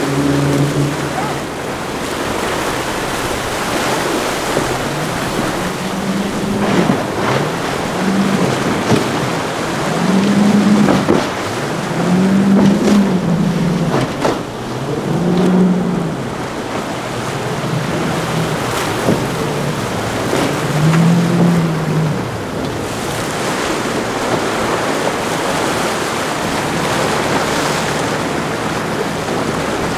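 Outboard engines of boats running through rough inlet waves, with surf and wind throughout. For much of the time one engine's pitch rises and falls in repeated swells about every two seconds as the boat rides over the waves. Near the end the engine fades under the rush of water and wind.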